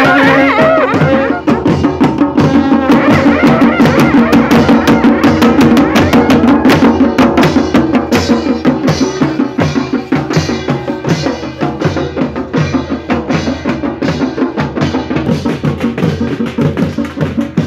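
Long brass karnal horns sounding briefly at the start, then barrel drums (dhol) beating a fast, steady rhythm of Himachali procession music.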